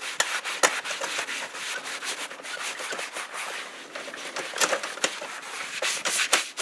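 A Scotch-Brite scouring pad scrubbing an Exmark zero-turn mower's seat with soapy water: a run of quick, irregular scratchy rubbing strokes.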